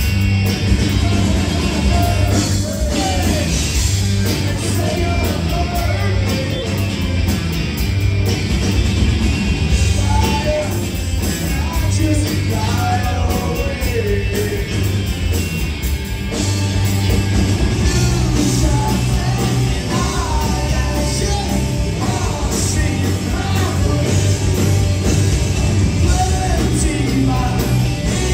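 Rock band playing live through a club PA, heard from within the crowd: electric guitar and drums with a male lead vocal singing over them.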